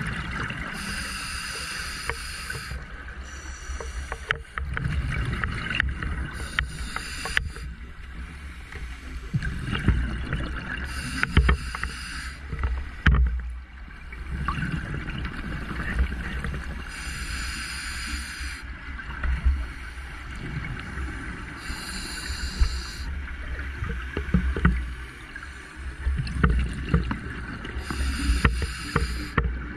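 Scuba diver breathing through a regulator underwater: a hiss on each inhalation about every five seconds, alternating with the rumbling, crackling gurgle of exhaled bubbles.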